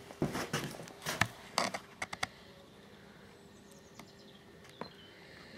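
Handling noise from the camera being moved in close: a quick run of clicks and light knocks in the first two seconds, then quiet workshop room tone with a faint steady hum and two single clicks near the end.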